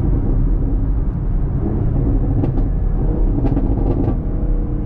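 2021 Camaro SS's 6.2-litre V8 running under a series of paddle downshifts from 10th gear toward 4th or 3rd, its exhaust note rising in steps as the revs climb. A few short sharp clicks come around the middle.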